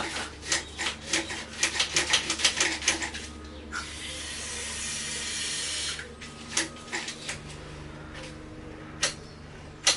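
GT85 aerosol spray lubricant being squirted down a motorbike control cable: a quick run of short spray bursts and clicks for about three seconds, then one continuous hiss of about two seconds, then a few single clicks.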